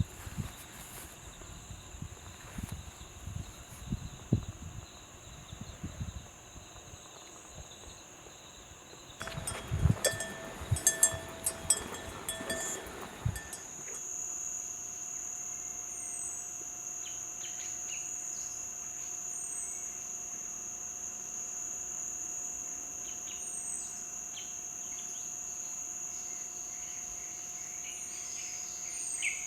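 Insects keep up a steady high-pitched drone, with short bird chirps over it in the second half. In the first few seconds there are irregular low thuds, and about 9 to 13 seconds in comes a loud spell of knocks and rustling close to the microphone.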